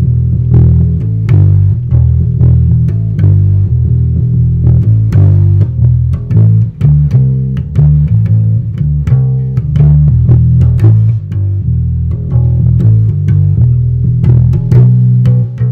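Squier Precision electric bass played through an amp, a continuous bassline of plucked notes that shift pitch throughout, heard through a phone's microphone. The bass has its 12-year-old strings just boiled to revive them, and the player hears more punch in them.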